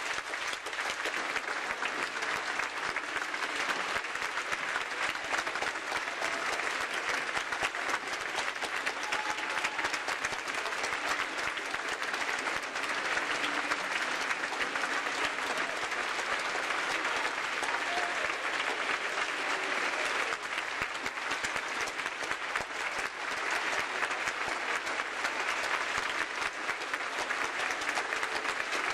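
Large audience applauding: dense, steady clapping that holds at an even level throughout.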